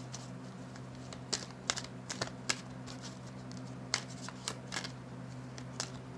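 A deck of oracle cards being shuffled and handled in the hands: about ten soft, irregular clicks and slaps of card against card.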